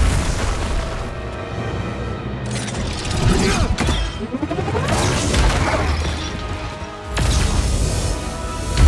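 Superhero film fight soundtrack: score music over booming impacts and crashes from energy-beam blasts. Sweeping rising and falling effects run through the middle, and a sharp hit comes near the end.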